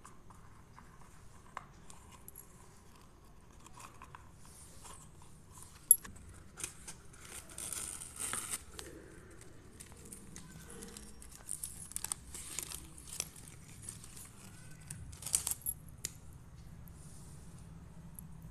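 Hands handling paper and plastic packaging and a small jewellery box: scattered rustling and light clicks, with one sharp click about six seconds in.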